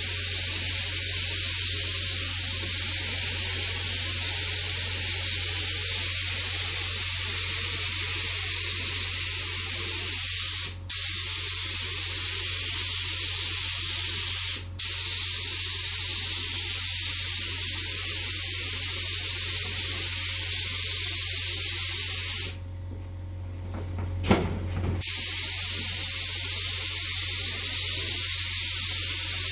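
Paint spray gun hissing steadily as a coat of paint goes onto motorcycle fairings. The spray stops briefly twice, about 11 and 15 seconds in, then pauses for a couple of seconds a little after 22 seconds before it starts again.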